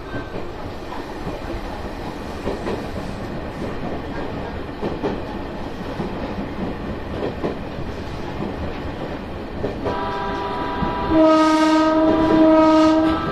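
Fukushima Kotsu 1000-series (ex-Tokyu 1000) electric train running along the track, heard from the driver's cab. About ten seconds in, the horn sounds: a steady held tone that gets louder, lasting about three seconds with a brief dip in the middle.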